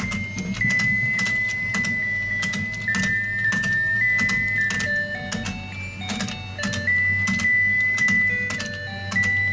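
Battery-operated fishing game toy running: a tinny electronic melody plays one note at a time over a steady motor hum, with regular clicking from the turning pond.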